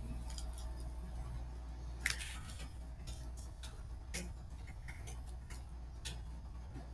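Computer mouse clicking irregularly, about nine clicks with the sharpest one about two seconds in, over a low steady electrical hum.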